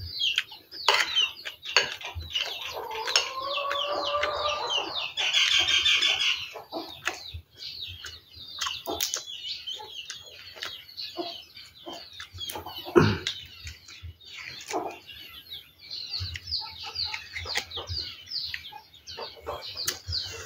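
Chickens and small birds calling: a steady stream of short, high, falling chirps, with a longer drawn-out call, perhaps a rooster's crow, from about two to six seconds in. Sharp clicks and knocks come now and then, one louder knock about thirteen seconds in.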